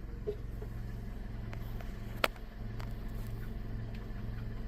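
Toyota car engine idling steadily at operating temperature, with the automatic transmission held in third gear under the brake to circulate the fluid through the gears. A single sharp click about two seconds in.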